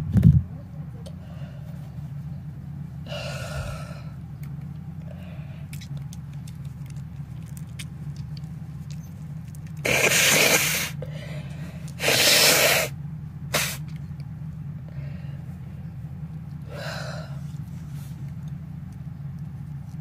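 A person's nose, irritated by dust, sneezing and blowing: a sharp burst at the start, then two long, forceful nose blows about ten and twelve seconds in and a short one just after, with sniffs and breaths in between.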